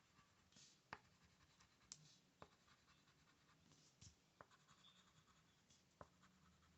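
Faint scratching of colouring in on paper, with a handful of small ticks scattered through it.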